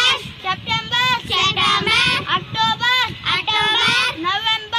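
A child's high voice reciting aloud in a sing-song chant, in short repeated phrases.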